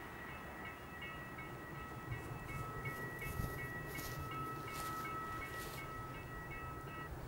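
Level crossing warning bell ringing steadily with a fast repeating electronic chime, stopping shortly before the end, over the faint low rumble of a train approaching along the line.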